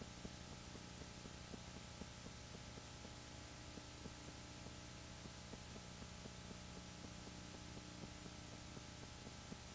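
Faint steady electrical hum over hiss, with light ticks several times a second. It is the background noise of a silent Super-8 film transfer, and none of the skating is heard.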